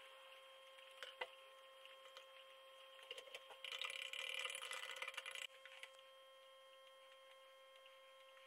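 A stick stirring salt into water in a glass jar, scraping against the glass for about two seconds midway through. A faint steady whine hangs in the background, with a single light click about a second in.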